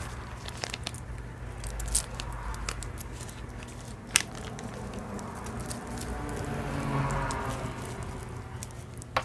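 Jewelry and small plastic baggies being handled: crinkling and rustling with scattered light clicks, and sharper clicks about two and four seconds in.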